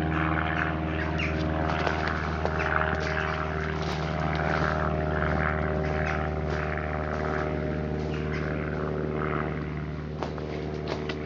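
A steady mechanical drone with several constant pitched tones, like an engine running without change, with a few light ticks over it.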